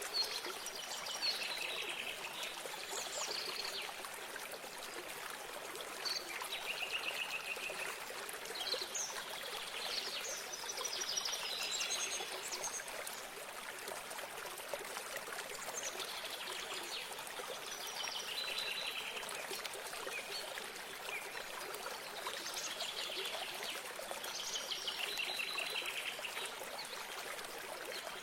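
Running water trickling steadily, with small birds singing short, quick phrases every couple of seconds over it.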